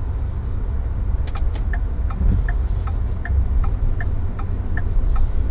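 Car engine and road rumble heard from inside the cabin as the vehicle turns, with a turn signal clicking steadily, about two to three clicks a second, starting about a second in.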